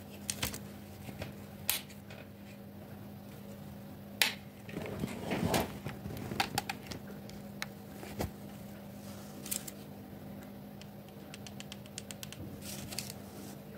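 Small handling sounds of nail-art tools on paper: scattered light clicks and taps of a metal pusher and plastic nail tip, a brief rustle about five seconds in, and a quick run of light ticks near the end, over a faint steady hum.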